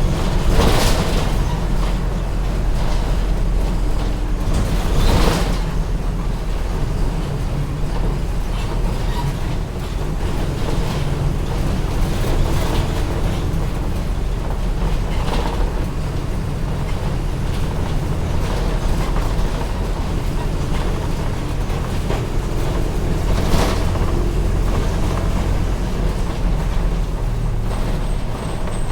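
Mercedes-Benz OF-1722M city bus running, a steady low engine rumble, with a few sharp knocks and rattles, the loudest about five seconds in and again near the end.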